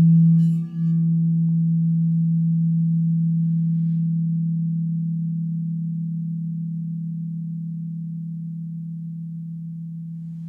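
Crystal singing bowl ringing with one deep, steady tone and faint higher overtones. It pulses briefly in the first second, then sustains and slowly dies away as the bowl is left to ring.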